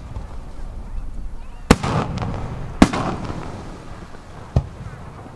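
Aerial firework shells bursting: three sharp bangs, the first almost two seconds in and the next two about a second and two seconds after it, with crackling spreading out after the first two.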